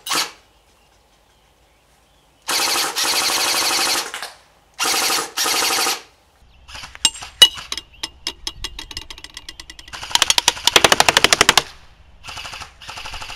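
Kalash AK-style airsoft electric gun firing full-auto: two rapid rattling bursts of about a second and a half each, then scattered single shots and another burst near the end.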